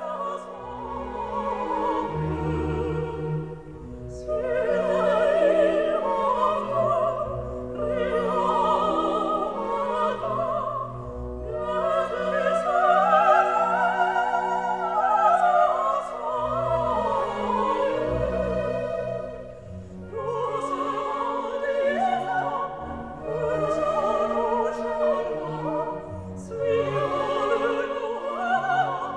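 Operatic singing with strong vibrato over an orchestral accompaniment, in long sung phrases of a few seconds each, with held low notes underneath.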